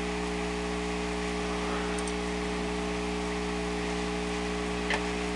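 Steady electrical hum with an even hiss, the background noise of the recording, with a faint click about two seconds in and another near the end.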